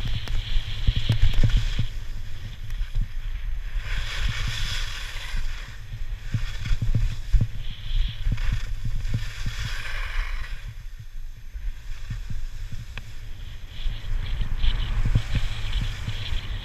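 Skis scraping and hissing over packed snow, the hiss swelling and fading every few seconds as the skier turns, over a steady low rumble of wind buffeting the camera's microphone.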